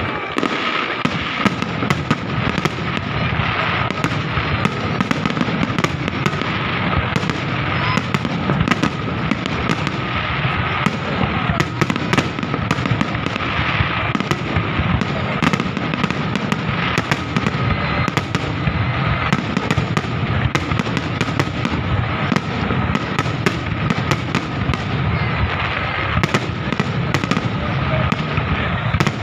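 Fireworks display: a continuous barrage of bangs and crackles, many per second, with no let-up.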